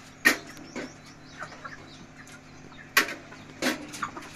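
A live chicken clucking in the pan of a weighing scale. Two sharp knocks come, one just after the start and one about three seconds in.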